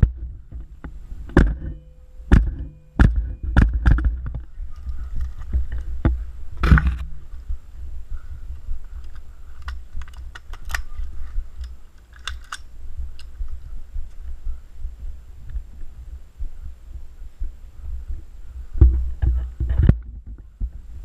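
Irregular knocks and thumps from a rifle and gear being handled close to a GoPro in its housing, over a steady low muffled rumble.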